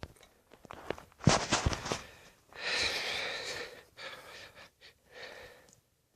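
A Glock pistol fired once about a second in, a sharp crack with a short echo, followed about a second later by a breathy gasp.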